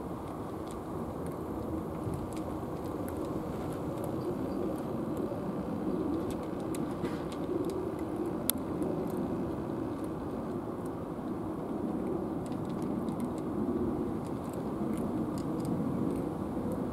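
Steady low outdoor rumble that swells and eases every few seconds, with faint scattered clicks of cats eating from plastic bowls and one sharper click about eight and a half seconds in.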